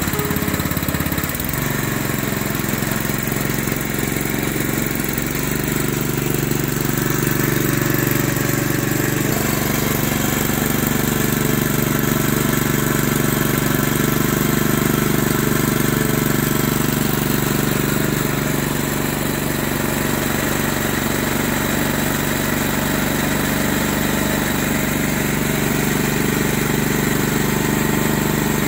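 Honda FF500 tiller's single-cylinder four-stroke petrol engine running steadily at a low, even speed, with a slight change in its note about nine seconds in.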